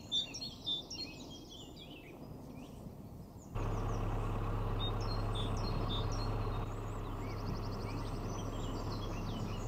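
Songbirds chirping and singing from riverside woodland. About three and a half seconds in, a steady low hum with a faint rushing noise comes in suddenly beneath the birdsong.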